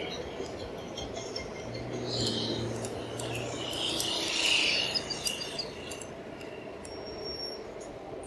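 Street ambience heard from a moving e-bike: a steady bed of road and traffic noise with a low passing engine hum, and a run of high-pitched chirps that peaks about four to five seconds in.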